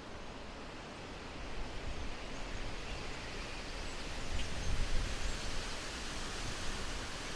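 Steady outdoor rushing noise that swells slightly, with low rumbling gusts on the microphone about two seconds in and again around the middle.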